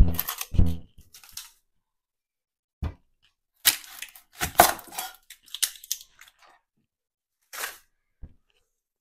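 Chef's knife working a whole onion on a wooden cutting board: two solid knocks of the blade against the board at the start, then dry crackling and tearing of the papery onion skin being cut and peeled away, with a few softer scrapes near the end.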